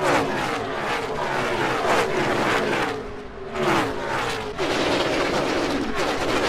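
NASCAR Gen 6 V8 stock cars going by at racing speed one after another, each engine note dropping in pitch as it passes. A bit past halfway a steadier, continuous engine note takes over.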